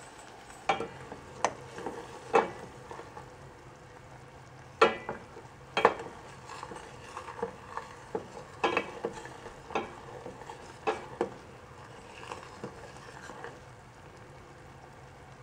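Jaggery syrup bubbling in a stainless-steel saucepan with a steady hiss, while a wooden spatula stirs it and knocks against the pan a dozen or so times at irregular intervals. The syrup is still watery, not yet at string consistency.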